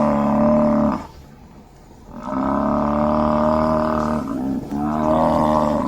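Buffalo calling: long, low, level-pitched calls. One ends about a second in, another runs from about two to four seconds in, and a third starts shortly before the end.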